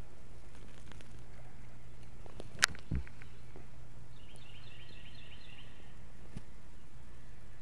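A single sharp click about two and a half seconds in, then a soft low thump, and a little later a bird's quick run of short repeated chirps, over a steady low background rumble.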